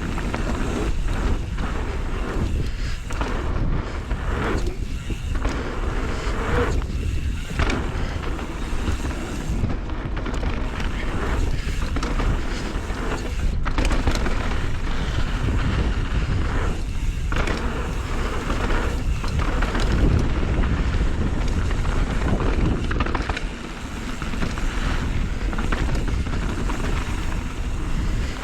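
Wind rushing over the microphone with the rattle and tyre noise of a mountain bike riding down a dirt trail. The noise is steady and rumbling, easing off briefly every few seconds.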